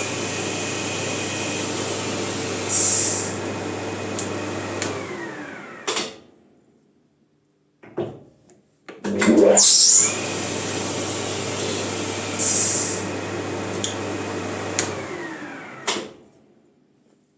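Maximat lathe motor spinning a bicycle disc brake rotor. It runs twice: each time it starts up, runs steadily, then falls in pitch and winds down to a stop as the disc brake is applied, ending with a knock. There is a short pause between the runs.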